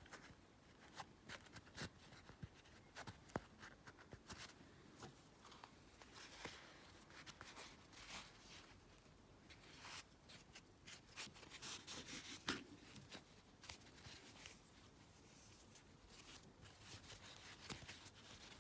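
Near silence with faint rustles and small clicks of yarn and crocheted work being handled as yarn is threaded through it.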